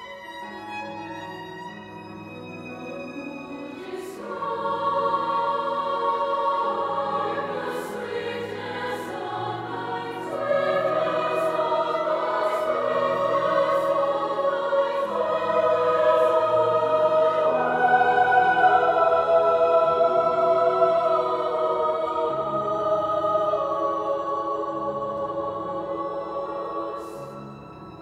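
Women's choir singing with piano, violin and cello. The instruments play softly at first, the choir comes in about four seconds in, grows louder through the middle and fades near the end.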